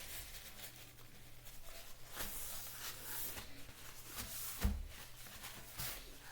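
Quiet room with faint scattered rustles and light clicks over a low steady hum, and one louder knock a little past the middle.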